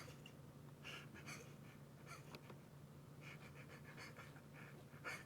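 Near silence: a low steady hum, with a handful of faint, soft taps and rustles from hands resting and shifting on the keyboard between bursts of typing.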